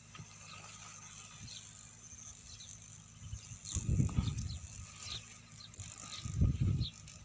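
Farm-field ambience: short high bird chirps repeating throughout over a steady faint insect drone, with two low rumbling gusts on the microphone, about four seconds in and again near the end.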